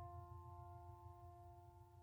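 Faint ringing tones slowly dying away, the fading tail of a single struck note.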